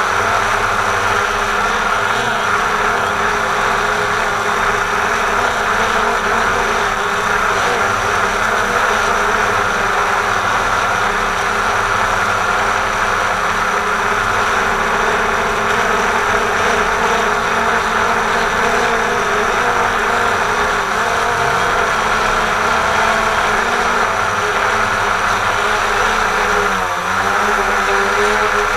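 Quadcopter drone's electric motors and propellers whirring steadily, heard up close from the camera on the drone itself. About 27 seconds in, the pitch briefly wavers and dips as the drone changes its flight.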